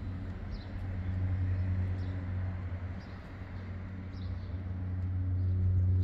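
Steady low mechanical hum, with short high bird chirps recurring about once a second.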